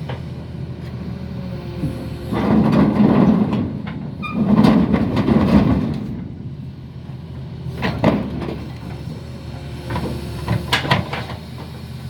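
Doosan excavator's diesel engine running under load, with two loud scraping stretches of a second or so each as the machine drags itself along the deck on its bucket and a track that will not turn, its final drive broken; several sharp knocks follow near the end.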